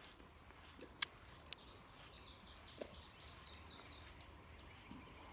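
A single sharp click about a second in, then a bird chirping a quick run of short high notes, over faint steady outdoor background noise.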